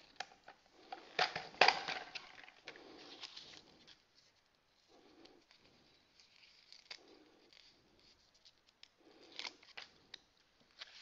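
Quiet handling of a paper sticker sheet: a wheel sticker being peeled off its backing, with light crinkling of the sheet and small sharp clicks, busiest in the first two seconds and again near the end.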